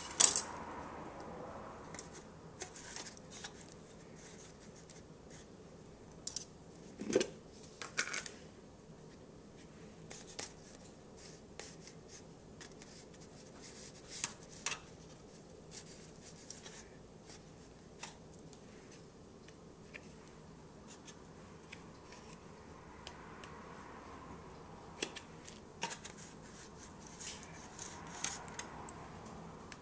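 Scattered light clicks, crinkles and scrapes of kitchen handling: sub rolls being split and worked with a knife in a thin aluminium foil pan. A few louder knocks come right at the start and again about seven seconds in.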